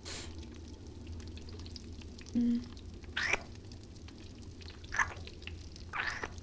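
Wet mouth sounds of close-up kissing: a few separate smacks with a brief hummed 'mm' about two and a half seconds in, over a low steady hum.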